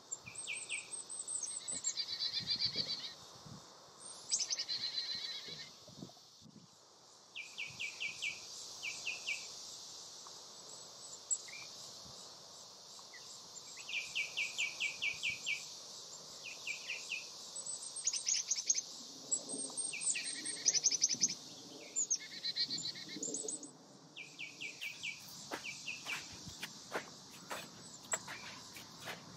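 Birds calling in repeated phrases of rapid high chirps over a steady high insect drone. Over the last few seconds, footsteps on sand.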